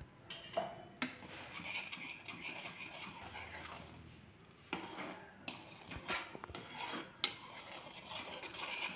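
A metal spoon stirring a thick mango-pulp and sugar mixture in a kadhai, scraping along the pan with a few sharp knocks of the spoon against the metal, and a quieter stretch a little after the middle.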